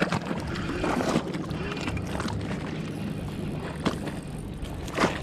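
Wind rushing on the microphone over small waves lapping at the dam's rocky edge. A few short knocks from handling the rod.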